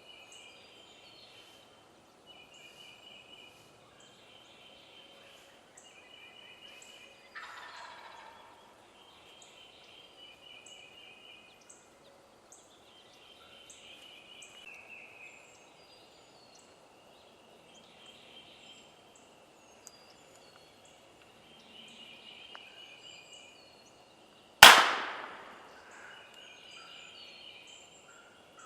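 Wild turkeys gobbling again and again, one gobble louder and closer about seven seconds in, with small songbirds chirping. Near the end a single shotgun shot goes off, far louder than everything else, and echoes away over a second or two.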